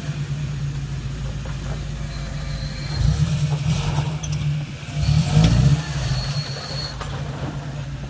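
Solid-axle-swapped Toyota Tacoma's 3RZ four-cylinder engine running under load as the truck crawls over rocks, revved up in bursts about three seconds in and again around five seconds in.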